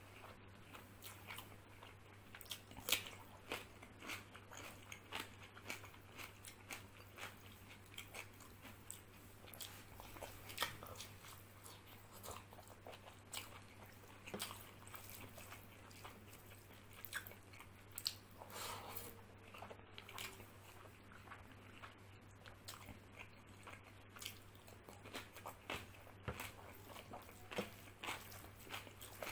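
Close-miked eating of rice and mutton chana masala by hand: irregular chewing and crunching with many small mouth clicks, and fingers mixing the rice and curry on the plate.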